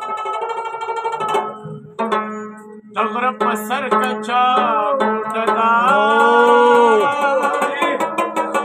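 Afghan rubab plucked in quick runs over its ringing drone strings. A man sings a Pashto folk melody over it, joining in with bending, held notes about three seconds in.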